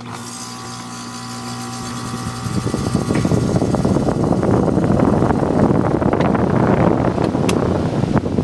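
Bryant central air conditioner condensing unit, with a single-stage Copeland scroll compressor, starting up: a steady low electrical hum, then a loud rushing of air building up from about two and a half seconds in as the condenser fan comes up to speed, dropping off sharply near the end.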